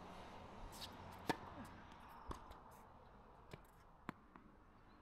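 A few sharp, isolated taps of a tennis ball bouncing on a hard court as a player readies to serve, the sharpest about a second in.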